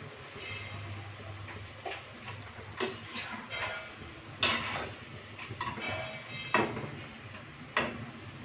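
Steel spoon knocking and scraping against a kadai as thekua are turned in hot oil, about five sharp clinks over the steady sizzle of deep-frying.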